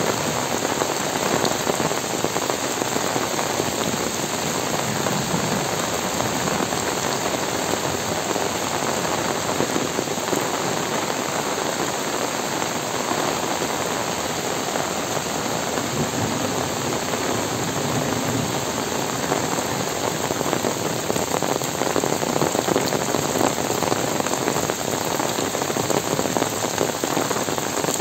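Heavy rain falling steadily through trees onto bare earth and leaf litter: a dense, even hiss of drops that holds level throughout.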